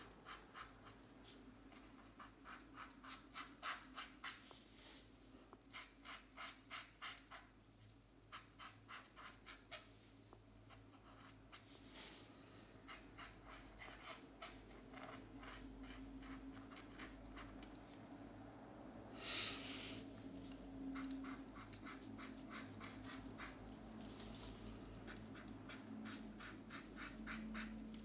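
Felt-tip markers colouring on a paper colouring-book page: runs of quick back-and-forth scratchy strokes, about four a second, broken by short pauses. There is one louder single scratch a little past the middle.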